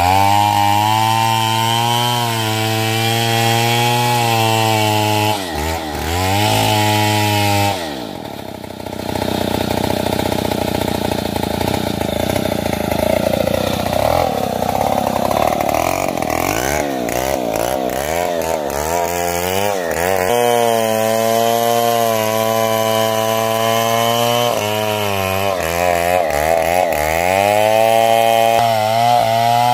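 Large two-stroke chainsaw, a Stihl MS070, running at high revs. From about a quarter of the way in, the note goes rough and wavers for several seconds as it works under load in the wood, then rises and drops several times as the throttle is blipped.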